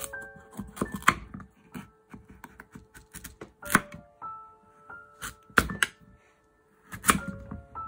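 A kitchen knife cuts through raw pumpkin and strikes a wooden cutting board, making several sharp knocks at irregular intervals. Soft background music with a gentle melody plays throughout.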